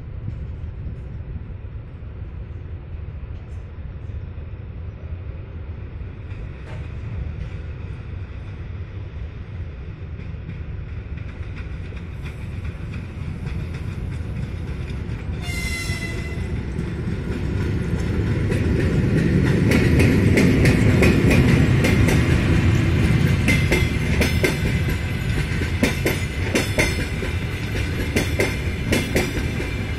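EP1M electric locomotive and its passenger coaches approaching and passing: a low rumble that grows steadily louder, one short horn blast about halfway, then the loud passing of the locomotive and the clickety-clack of the coaches' wheels over rail joints.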